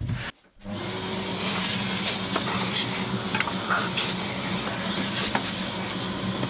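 Workshop vacuum running steadily from about half a second in, its hose sucking sawdust out of a bandsaw's lower wheel housing, with scattered clicks.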